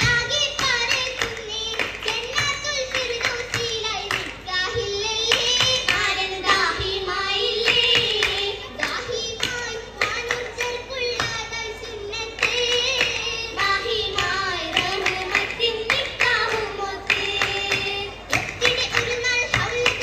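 Oppana song: voices singing a Mappila-style melody, with the dancers' rhythmic hand-clapping marking the beat throughout.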